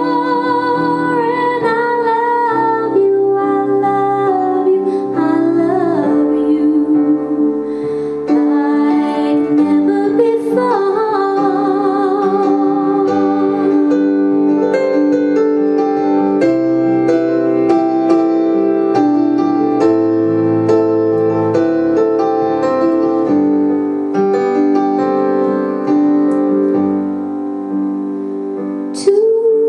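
A woman singing a slow song with vibrato over keyboard accompaniment, with one short sharp click near the end.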